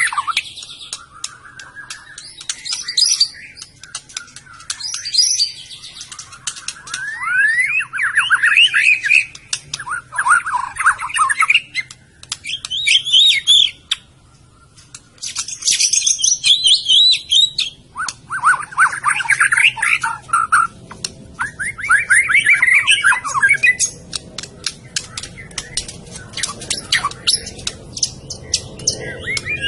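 White-rumped shama (murai batu, Medan type) singing: varied phrases of rapid rising whistles and trills, with a short pause about halfway through.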